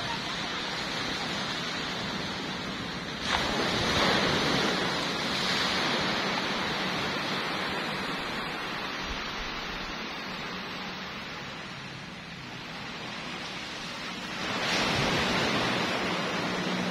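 Small waves breaking and washing up on a sandy beach: a steady surf hiss that swells suddenly about three seconds in and again near the end, each surge fading away over a few seconds.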